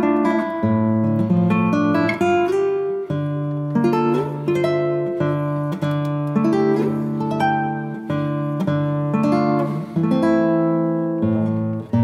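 Background music: a plucked acoustic guitar playing a melody of separate picked notes.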